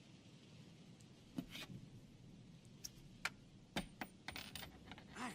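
A few faint, scattered clicks and knocks, bunched together about four seconds in.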